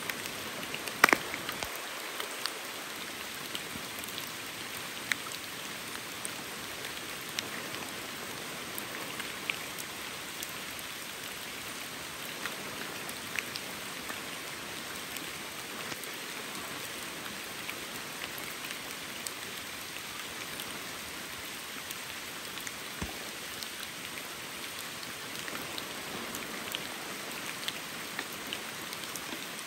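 Steady patter of water with scattered drips throughout and a sharper splash about a second in.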